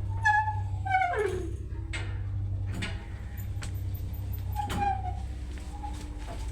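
1977 MLZ passenger elevator squeaking as it travels, over a steady low hum. There are several squeals: one near the start, one that slides down in pitch about a second in, and another near five seconds, with a few sharp clicks between them.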